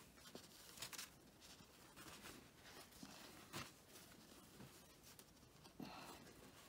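Near-quiet room with a few faint, brief rustles of paper napkins being handled and laid down on a pile.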